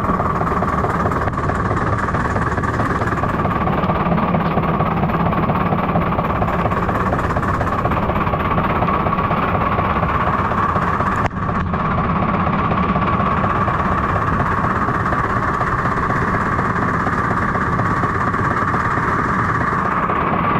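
Steady mechanical running noise: a continuous rumble with a constant hum, dipping briefly about eleven seconds in.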